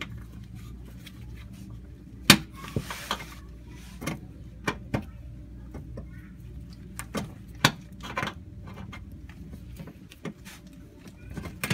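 Scattered sharp clicks and knocks, with the loudest about two seconds in, as screws and clips are worked loose by hand from a car's plastic engine undercover. A low steady hum runs underneath.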